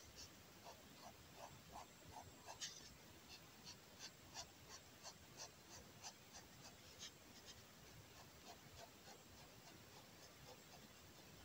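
Fineliner pen hatching on kraft paper: faint, short strokes of the nib across the paper, about two to three a second, growing weaker in the last few seconds.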